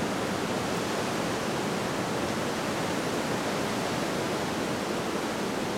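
Steady surf noise from the ocean: an even, unbroken hiss with no single wave breaks standing out.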